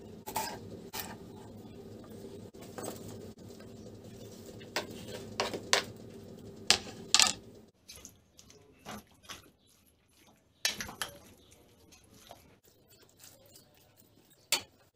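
A knife slicing a green pepper on a plastic cutting board, giving irregular sharp taps over a steady low hum. About halfway in, this gives way to a metal spoon stirring marinated pork pieces in a metal bowl, with clinks and scrapes against the bowl.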